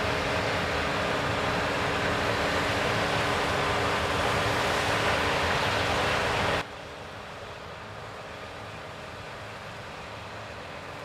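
CLAAS Lexion 7500 combine harvester running close by at harvest: a loud, steady rushing noise with a steady hum under it. About two-thirds of the way in it drops suddenly to a much quieter, more distant rush.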